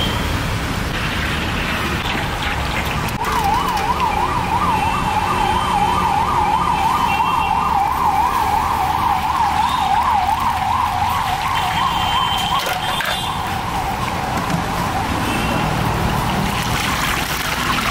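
A siren warbling rapidly up and down, about three cycles a second, starting about three seconds in and fading out near the end, over a steady background of street noise.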